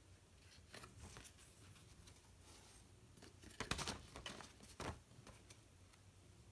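Faint rustling of paper card being handled while cross-stitch floss is sorted onto a hole-punched floss card. Scattered soft rustles come with a denser cluster about three and a half seconds in and another near five seconds.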